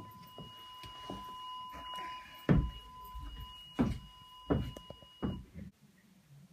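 Several sharp thumps and rustles from a handheld phone camera being bumped and rubbed against clothing and bedding, over a steady high two-pitch tone. The tone stops shortly before the end, and everything drops away suddenly just after.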